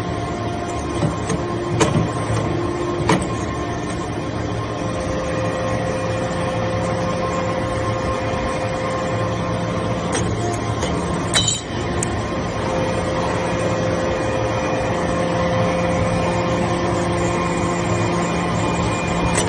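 Hydraulic metal-chip briquetting press running, a steady machine hum with several held tones as its ram compacts metal chips. Two sharp clicks in the first three seconds and a sharp clank about eleven seconds in.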